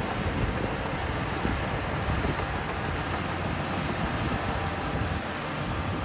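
Shantui crawler bulldozer's diesel engine running under load as it pushes soil, a steady low rumble, with wind buffeting the microphone.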